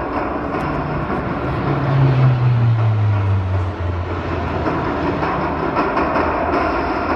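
Military helicopter flying past over a steady rushing noise. A low tone drops in pitch about one to four seconds in as the helicopter goes by.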